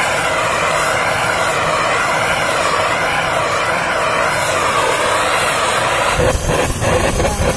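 Handheld gas blowtorch flame rushing steadily as it chars hanging chicken legs. About six seconds in, music with a beat comes in.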